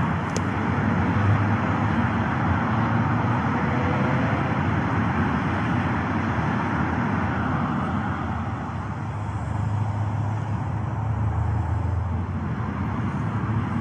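Continuous road traffic from a busy motorway roundabout junction: a steady rush of tyres and engines that eases slightly about eight seconds in, then builds again.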